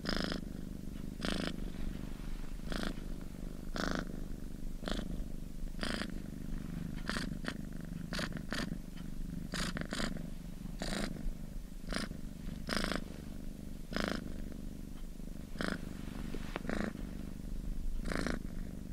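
Domestic cat purring steadily, a continuous low rumble with breathy swells roughly once a second as it breathes in and out.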